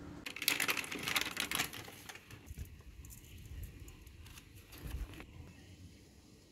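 Crinkling, crackling handling noise: a dense run of small sharp clicks for about two seconds, then scattered clicks and a low thump about five seconds in.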